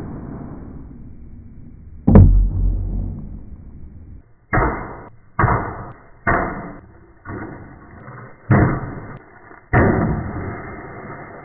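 A katana swung at cutting-test targets: a heavy strike about two seconds in, then six sharp swoosh-and-hit sounds about a second apart, each dying away. The sound is dull and muffled.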